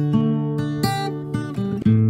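Acoustic guitar music, with picked notes that change pitch every fraction of a second.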